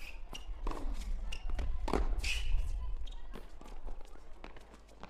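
Tennis rally on a hard court: sharp knocks of racket strings hitting the ball and the ball bouncing, spaced about every half second to a second, with a couple of short squeaks.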